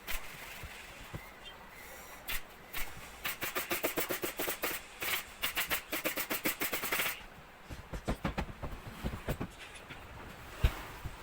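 A rapid run of sharp taps, about six a second, lasting roughly four seconds, followed by a few duller knocks and one louder knock near the end, from sofa-frame or upholstery work.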